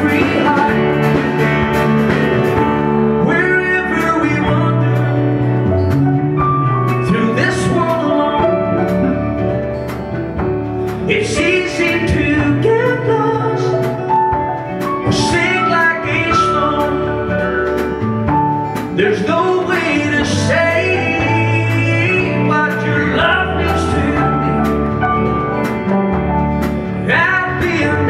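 A man singing into a microphone while strumming his acoustic guitar, a live solo vocal-and-guitar performance.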